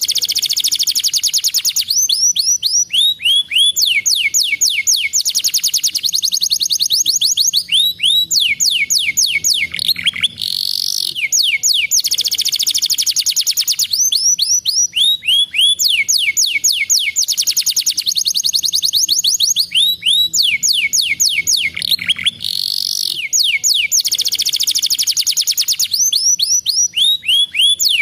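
Domestic canary singing continuously: long, fast trills of rapidly repeated high notes and quick sweeping phrases, with only short pauses between passages.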